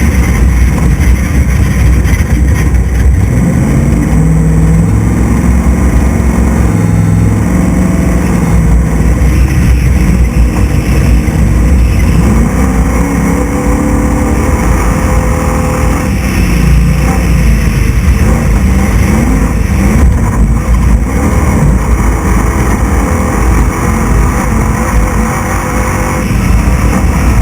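Class 6100 desert race truck's engine running hard at speed, loud throughout, its pitch rising and falling again and again with throttle and gear changes, heard from on board the truck.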